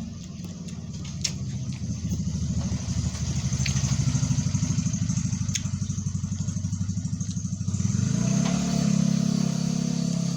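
A motor engine running, with a fast, even pulse that swells in the middle and gives way to a steadier hum about eight seconds in. A few sharp light clicks sound over it.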